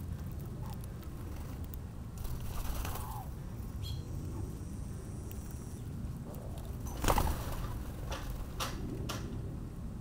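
Backyard outdoor ambience: a steady low rumble, with a couple of faint short chirps and a sharp click about seven seconds in, followed by a few lighter clicks.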